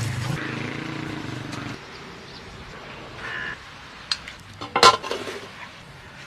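Tableware clinking and knocking, several short strikes with the loudest a sharp knock about five seconds in. A low steady hum fades out at about two seconds.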